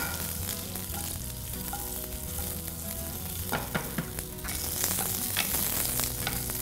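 Par-boiled baby potatoes sizzling in hot mustard oil with panch phoron and dry red chillies, tossed in a ceramic-lined frying pan and stirred with a wooden spatula. A steady sizzle, with a few light knocks from the stirring.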